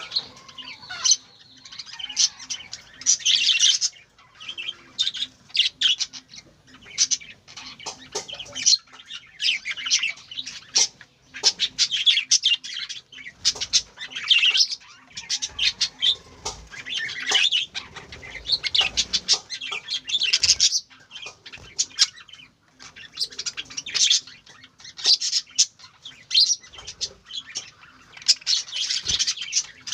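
Birds chirping and twittering: rapid high-pitched chirps in busy bursts every second or two.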